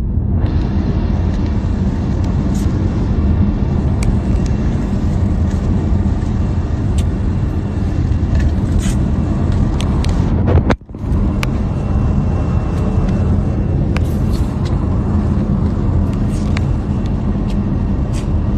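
Car driving at speed on a highway: a steady, loud rumble of road and engine noise. It drops out for a moment about eleven seconds in.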